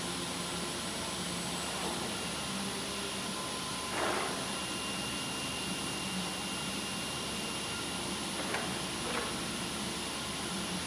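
Four-head PVC window welding machine running with a steady hiss and hum, a short burst of air noise about four seconds in, then a thin steady whine and two light clicks near the end.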